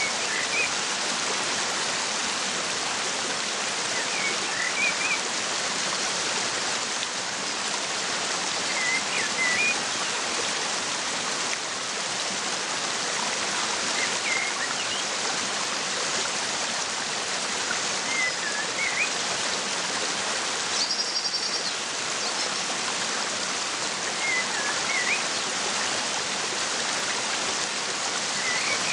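Steady rushing of a waterfall, with a bird giving short chirps about every four to five seconds over it and one brief, higher trill about two-thirds of the way through.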